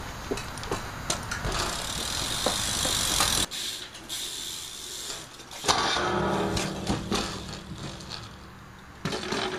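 BMX bike tyres rolling on wet concrete, the noise rising and then cutting off abruptly about three and a half seconds in. Then a single hard crash impact of rider and bike on the rail and concrete, the loudest sound, just under six seconds in, followed by a few smaller knocks.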